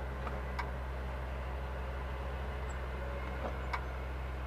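Caterpillar 365 excavator's diesel engine idling steadily, a low hum heard inside the cab, with a few faint clicks.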